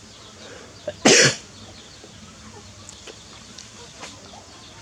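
One short, loud cough about a second in, over a faint background with a few small clicks.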